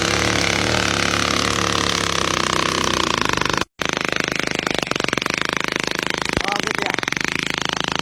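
Motorcycle engine running with a rapid, even firing beat. The sound drops out for an instant about halfway through, then carries on unchanged.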